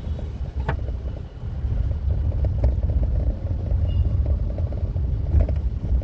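Car in motion: a steady low rumble of engine and road noise.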